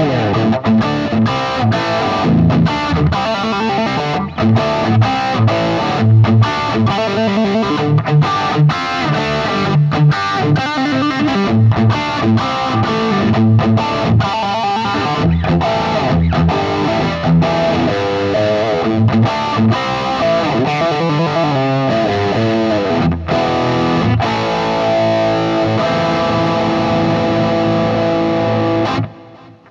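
Harley Benton SC-550 single-cut electric guitar with Roswell pickups, played with an overdriven tone: riffs, chords and lead lines. It ends on a held chord that rings for about five seconds and then cuts off just before the end.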